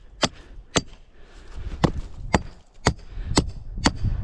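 A 25-ounce California framing hammer knocking concrete form stakes loose: about seven sharp strikes at an even pace of roughly two a second, each with a short ring.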